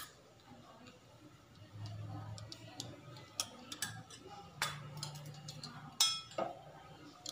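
A few scattered sharp clicks and taps of a spoon against a bowl and a steel plate as curd is spooned over chaat, over a faint low hum that comes and goes.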